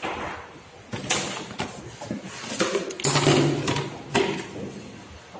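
Handling noise from a wheelchair commode seat: a series of knocks and clicks as the padded seat cover is worked loose and lifted off the metal seat frame.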